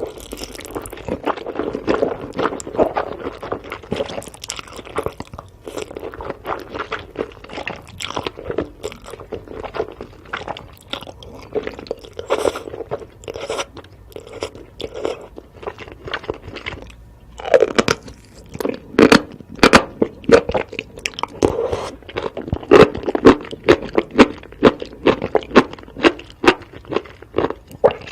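A person biting and chewing crunchy sweets: a dense run of crisp crunches, turning into sharper, louder separate bites about two-thirds of the way in.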